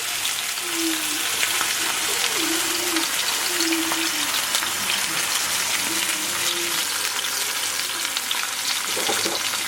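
Spice-coated chicken breast cutlets searing in hot oil in a pan on medium-high heat: a steady, dense sizzle full of small crackles. It is the sound of the oil hot enough to sear and caramelize the meat.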